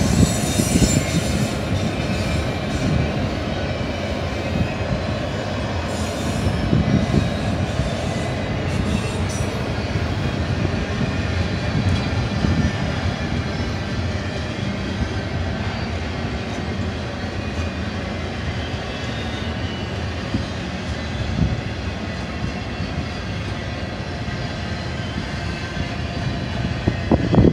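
Double-stack intermodal container train's cars rolling past at steady speed: a continuous rumble and rail wheel noise.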